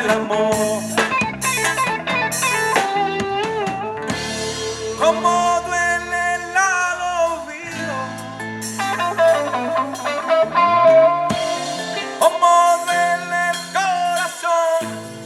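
Instrumental music led by guitar, with sliding guitar notes over bass and drums.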